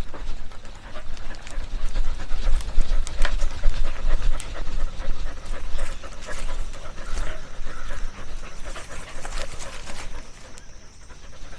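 A dog panting, heard up close from a camera strapped to its body, with frequent knocks and rustling and a low rumble as the camera moves with the dog.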